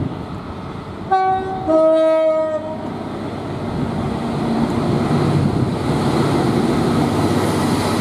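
Diesel locomotive sounding its two-tone horn: a short higher note about a second in, then a longer lower note. The engine and the wheels on the rails grow louder as the train runs past close by.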